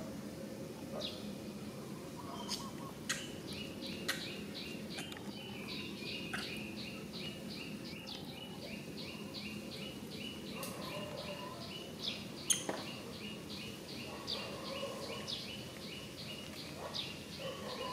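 A bird calling in the background with a rapid run of short, high chirps, about three to four notes a second, plus a few sharp clicks scattered through.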